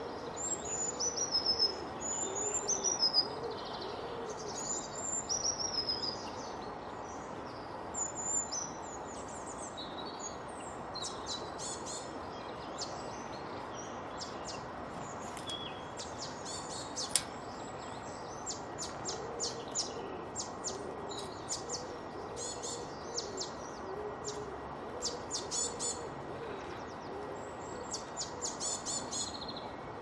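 Garden songbirds singing and chirping: high whistled, falling phrases through the first several seconds, then many quick high chirps. Low repeated calls from another bird run underneath, over steady background noise.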